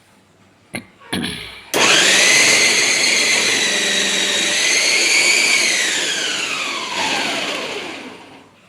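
Preethi Zodiac mixer grinder motor chopping small onions in its onion-chopper jar: a couple of knocks, then the motor starts suddenly and runs loud with a steady whine for about five seconds. Near the end it winds down, its pitch falling as it stops.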